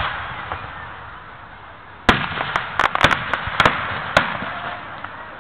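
Aerial fireworks shells bursting. The echoing tail of a bang fades at the start, then comes a sharp bang about two seconds in, a quick run of pops, and another bang about four seconds in.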